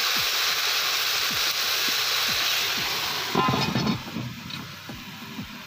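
Slightly frozen broth hitting a hot cast-iron pan of frying cabbage, hissing and sizzling loudly as it flashes to steam. About three and a half seconds in the hiss drops sharply to a much quieter simmer.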